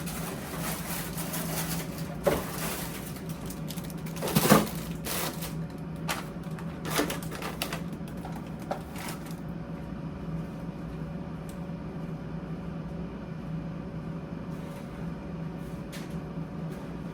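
Frozen-food packages being handled and put away in a freezer: plastic packaging crinkling and several knocks as boxes are set down, the loudest about four and a half seconds in, with the handling dying down after about nine seconds. A steady low hum runs underneath.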